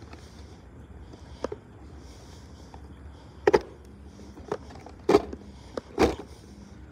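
Several sharp knocks and clacks at irregular intervals, the loudest about three and a half seconds in and a quick pair near the end, over a steady low rumble.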